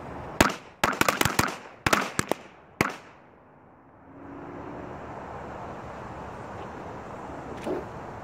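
A string of firecrackers going off: about a dozen sharp bangs in quick, uneven succession over two and a half seconds, the last one standing a little apart. A steady low background hum follows.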